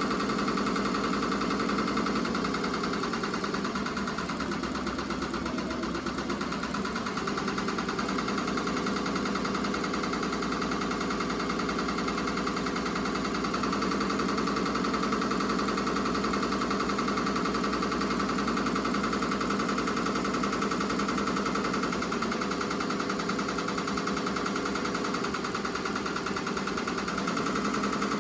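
Ricoma MT-2002-8S multi-needle embroidery machine running, its needle stitching rapidly through a hooped towel in a fast, steady mechanical rattle.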